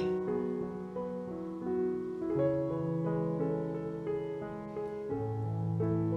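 Background piano music: slow, held chords changing about once a second.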